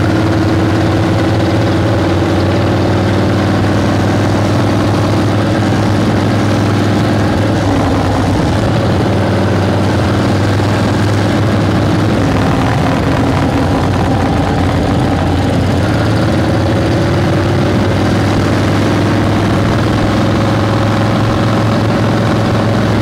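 Harley-Davidson flathead V-twin motorcycle engine running steadily under way, its pitch shifting slightly a few times.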